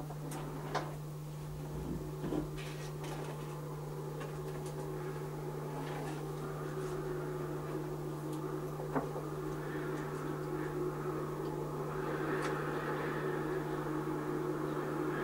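A steady low hum, with a few soft knocks and clicks, and a faint hiss that grows slightly louder towards the end.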